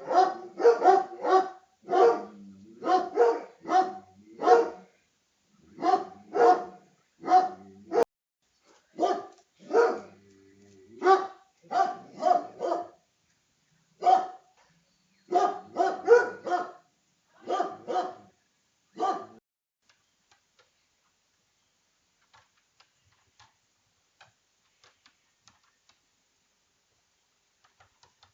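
A dog barking over and over, in quick runs of short, loud barks, until it stops about two-thirds of the way through; after that only faint ticks remain.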